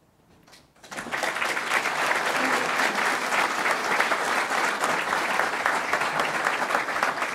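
Audience applauding, starting about a second in and going on steadily.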